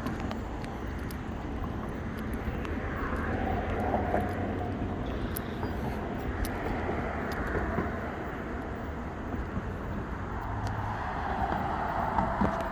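Outdoor traffic noise: vehicles passing by over a steady low rumble, swelling about four seconds in and again near the end.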